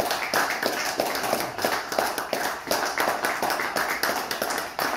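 A small audience applauding with dense, irregular hand claps.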